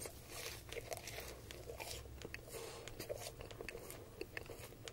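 Close-miked biting and chewing of a fried McDonald's Chicken McNugget: many small, irregular crunches of the crisp coating as it is chewed.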